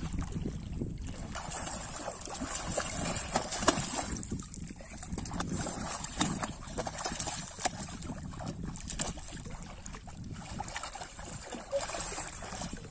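Shallow water splashing and sloshing as a child crawls and wades through it, groping with his hands. The splashes are irregular, with a sharper one about three and a half seconds in.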